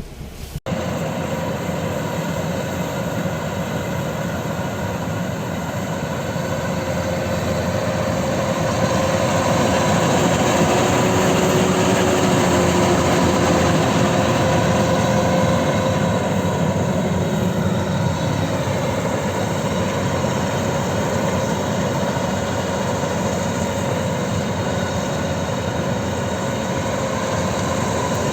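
Kubota DC-93 combine harvester running steadily with its diesel engine and threshing machinery, a steady mechanical whine over a dense rumble. It cuts in sharply about half a second in and grows a little louder after several seconds.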